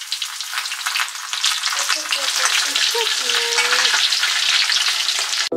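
Panko-breaded horse mackerel fillets deep-frying in about 2 cm of oil in a frying pan: a steady, dense crackle and sizzle of bubbling oil that cuts off suddenly near the end.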